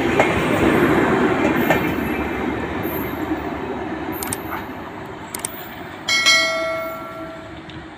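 An express train of LHB coaches rushing past at speed, with wheel clatter over the rail joints, fading away over the first half. A few sharp clicks follow, then about six seconds in a sudden loud ringing tone lasts about a second and a half.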